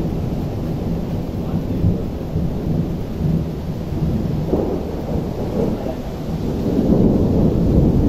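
Low rolling rumble of thunder that grows louder near the end.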